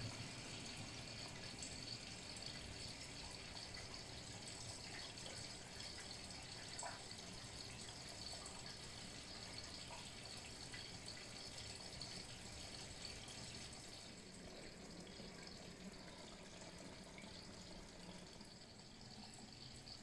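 Vintage Candy 133 front-loading washing machine in its rinse: water running into the drum and sloshing around the tumbling laundry, faint and steady.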